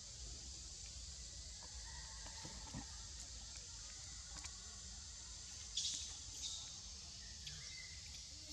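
Quiet forest ambience: a steady high insect drone with a few faint, short bird-like chirps, and one brief, sharper sound about six seconds in.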